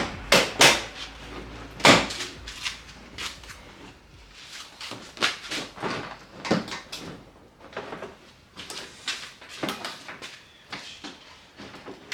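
Irregular clicks, knocks and clatter of plastic trim and fasteners being handled while the front bumper is worked off the car. The loudest knocks come near the start and about two seconds in.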